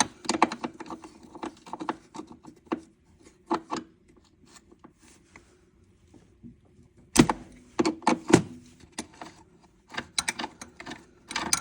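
Hand tools and metal parts clicking and knocking unevenly on a snowmobile chain case while a fastener is being loosened, with one sharper knock about seven seconds in.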